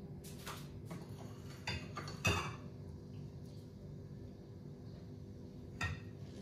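Kitchen utensils clinking and knocking against a pan a few times, the loudest about two seconds in and one more near the end, over a steady low hum.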